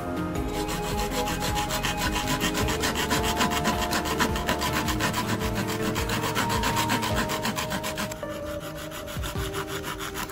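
Hand saw blade cutting through a plastic pipe with quick back-and-forth strokes. The rasping eases off about eight seconds in.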